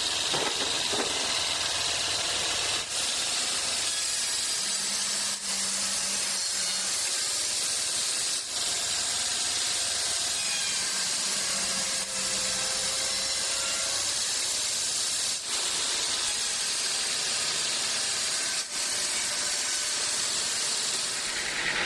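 Sawmill saw cutting through acacia logs: a steady hissing noise with the motor running underneath, broken by brief dips every few seconds.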